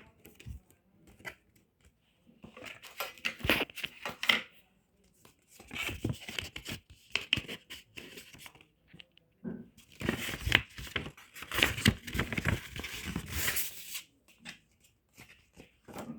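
Packaging being torn open and crinkled by hand, in three bouts of rustling and tearing separated by short pauses.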